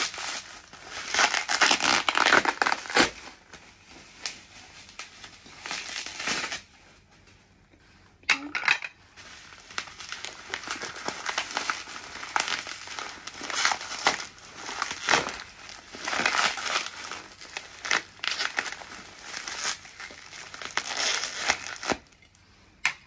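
Plastic bubble wrap crinkling and rustling as it is pulled apart by hand, in irregular bursts with a couple of short pauses.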